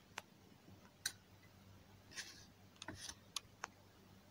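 Near silence with a few faint, scattered clicks of a plastic spoon against a glass mug of yogurt.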